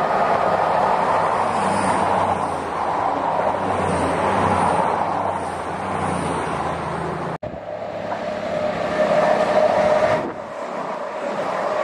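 East Midlands Trains Class 222 Meridian diesel multiple unit passing with its diesel engines running steadily. After an abrupt cut, a CrossCountry Voyager diesel unit passes fast, loudest about two seconds after the cut, then drops away to a steady whine.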